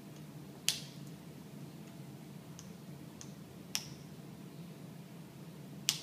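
Sharp clicks from an African grey parrot: three loud ones, about a second in, near four seconds and just before the end, with a few fainter ticks between.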